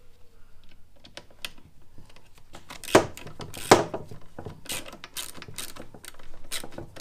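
Socket ratchet clicking in short irregular runs as a bolt on the new CCV bracket is tightened, with two louder knocks about three seconds in.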